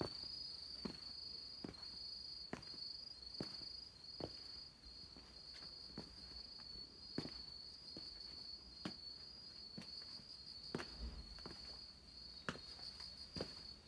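Footsteps of a person walking at an even pace, a little more than one step a second, over a steady high-pitched pulsing chirp of insects.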